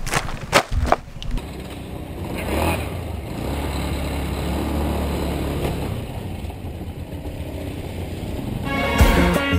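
A few sharp knocks, then a small motor scooter running steadily as it is ridden. Music with a regular beat comes in near the end.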